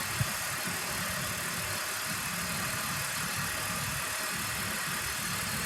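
BMW E46 engine idling steadily with the air-conditioning compressor engaged and running, and one brief click about a quarter of a second in.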